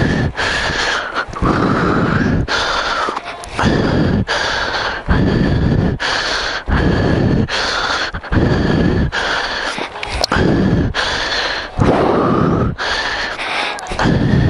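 A person breathing heavily and loudly close to the microphone, a breath about every second or so.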